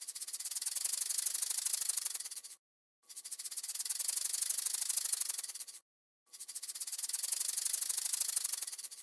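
A snake hissing: three long hisses, each swelling and then fading, with short pauses between them.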